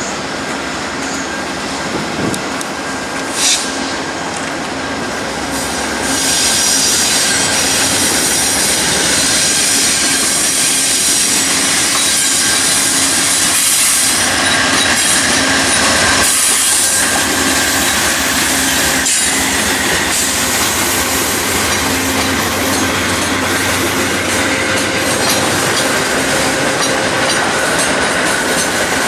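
VIA Rail P42 Genesis diesel locomotive and its LRC passenger cars rolling slowly past on approach tracks. The engine runs steadily while the wheels squeal and click over the rails and switches. It grows louder about six seconds in as the locomotive draws near, then holds as the cars go by.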